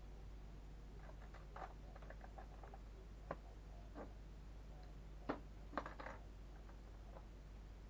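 LEGO bricks clicking as hands press and place them on a model, a scattered handful of faint sharp clicks, the loudest two a little past five and nearly six seconds in.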